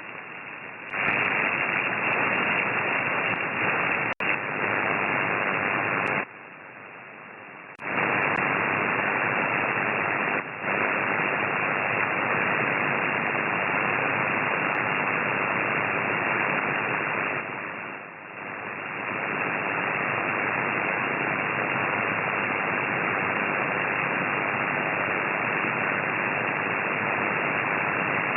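Amateur radio transceiver's speaker hissing with band-limited static, the new noise problem on the 50 MHz band. The hiss steps up loudly about a second in, drops back for a couple of seconds around six seconds in, dips again briefly twice, then holds steady.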